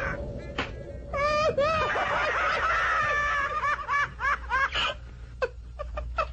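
A high-pitched cartoon voice laughing: one long, wavering laugh, then a quick run of short rising 'ha's about four seconds in, trailing off near the end.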